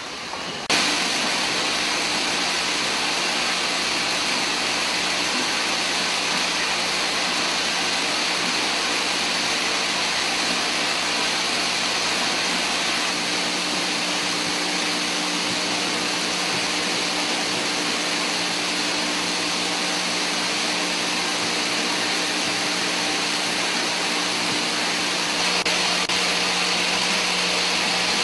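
Steady, even noise of automated syringe-making machinery with a constant low hum, starting abruptly about a second in.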